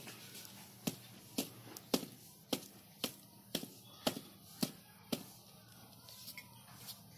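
A run of about nine sharp knocks, about two a second, like chopping or tapping. They stop about five seconds in.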